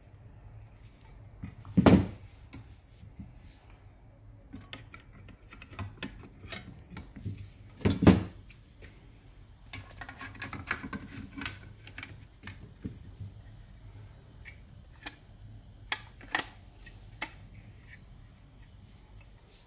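Sheet-metal chassis of a car radio head unit handled and fitted together with its circuit board: scattered clicks, small rattles and metallic clatter, with two loud knocks, about two seconds in and about eight seconds in.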